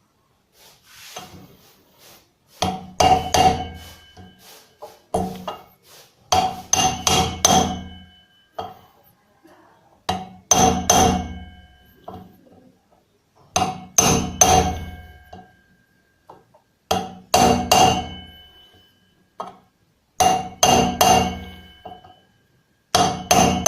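Hammer blows on a metal tool, driving a new front wheel bearing into a motorcycle hub. They come in quick bursts of two to four strikes every few seconds, each blow ringing briefly like struck metal.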